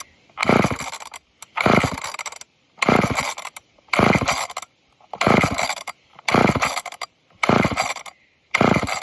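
An old two-stroke chainsaw's recoil starter is pulled over and over, about once a second, eight times. Each pull cranks the engine with a short rasping whirr, and the engine doesn't catch.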